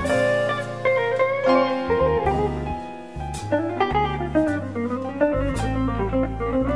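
Instrumental break in a slow jazz ballad: a guitar plays a melodic line over low bass notes, with occasional soft cymbal strokes.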